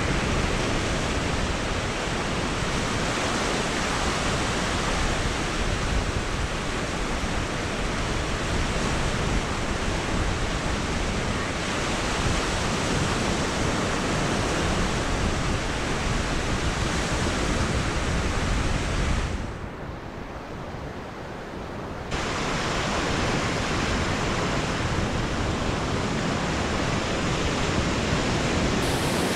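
Steady rush of surf washing onto a sandy beach, mixed with wind noise. It drops noticeably quieter for about two seconds about two-thirds of the way through, then resumes.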